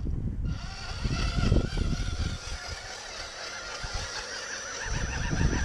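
High whine of small electric motors on radio-controlled scale models, steady at first and wavering in pitch in the second half. Wind rumbles on the microphone throughout, easing off for a couple of seconds mid-way.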